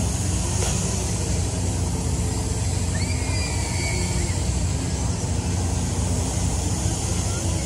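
Steady low hum and rumble of fairground ride machinery running, with a faint high squeak about three seconds in.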